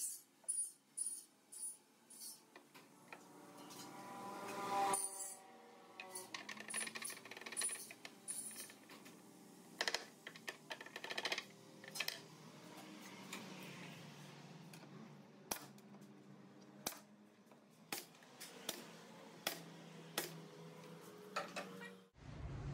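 Irregular light clicks and taps, as of small hard objects being handled and set down, with a pitched squeak that builds up about five seconds in.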